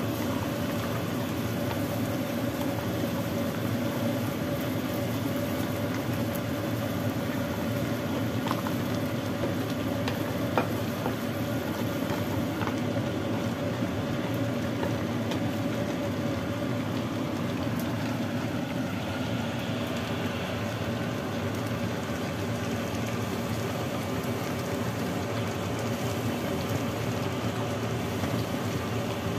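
Braised pork trotters and peanuts simmering in sauce in a casserole pot, bubbling steadily, over a steady hum.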